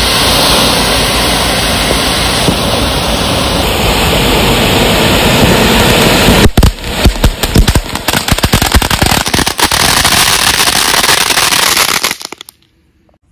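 Ayyan Lemon Tree fireworks fountain (flower pot) spraying sparks with a steady, loud hiss. About six and a half seconds in it breaks into rapid, sharp crackling, then cuts off suddenly near the end as it burns out.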